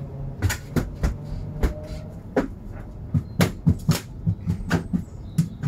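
Kittens and a rabbit crunching dry food: a run of sharp, irregular crunches that come faster about three seconds in.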